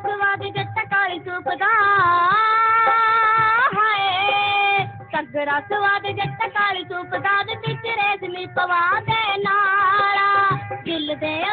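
Punjabi folk music: a high melody in long, held, wavering notes with quick ornaments, over a steady drum beat.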